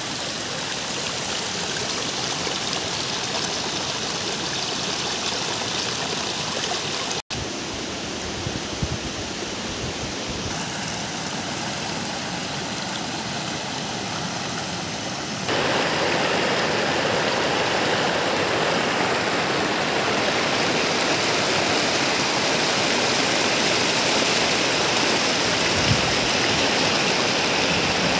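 Shallow mountain river rushing over boulders in rapids, a steady noise of white water. It cuts out for an instant a few seconds in and steps up louder just past halfway.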